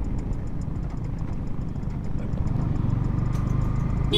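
Yamaha R15M's 155 cc single-cylinder engine running at low revs as the motorcycle slows, under steady wind and road rumble. There is faint, evenly spaced ticking.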